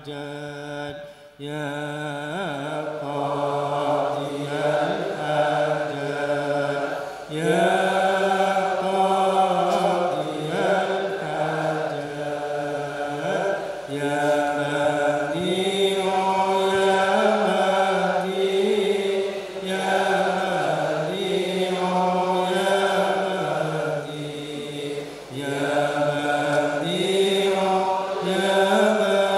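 Voices chanting Sufi dhikr in long, held, melodic phrases that repeat every six to seven seconds.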